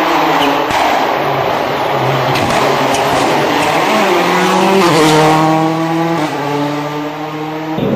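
A Škoda Fabia rally car's engine running at full throttle past the listener, with a loud rushing noise. The revs climb and then drop at two quick gear changes, about five and six seconds in.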